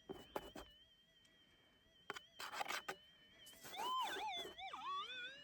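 Minelab SDC 2300 metal detector holding its steady threshold hum while pieces of gravel scrape and clatter in the hand. About two thirds of the way through, it gives a loud warbling tone that swoops up and down: the target signal as a gold-bearing piece passes over the coil.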